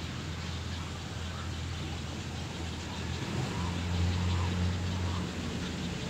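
Low, steady engine hum of a vehicle, swelling louder a little past halfway through and then easing off.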